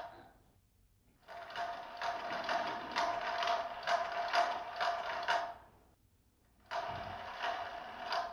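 An electronic cat toy's small motor and gears whirring with rapid clicking, in two runs: one for about four seconds, then a short pause, then it starts again near the end.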